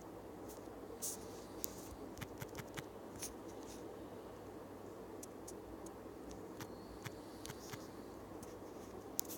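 Scattered light clicks and taps from a finger tapping and typing on a smartphone touchscreen, in two clusters, over a faint steady hiss.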